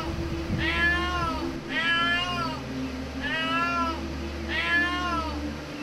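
Cat meowing repeatedly: four long meows about a second apart, each rising and then falling in pitch.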